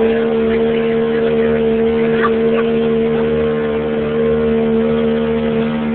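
Motorboat engine running at a steady drone, with rushing wind and water noise over it.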